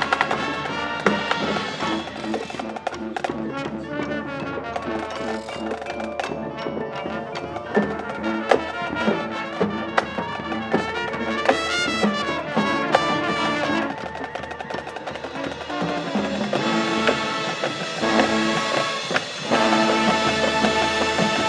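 High school marching band playing: brass with drumline percussion, swelling near the end into a loud held full-band chord.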